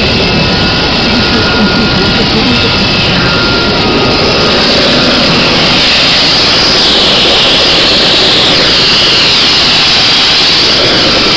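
Bell 206 JetRanger III helicopter running close by: a loud, steady turbine whine and rotor rush that grows a little stronger about halfway through.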